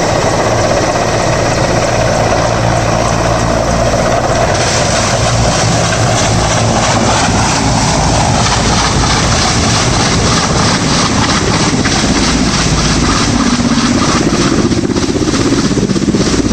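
Helicopter engine and rotor running loud and close as it comes in to land. A fast, even beating grows stronger about four seconds in and carries on to the end.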